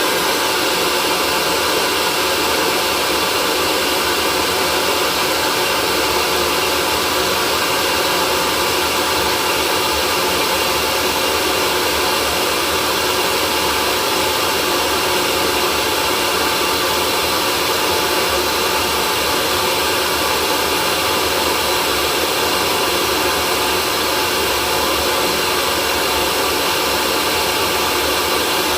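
Hair dryer running steadily: an even, unchanging rush of blown air with faint steady tones from its motor and fan.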